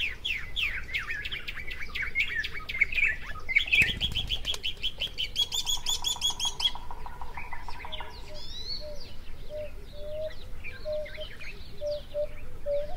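Birds singing and chirping: quick falling chirps at first, a fast run of repeated notes about five to seven seconds in, then a short low note repeated about twice a second. There is a brief low rumble about four seconds in.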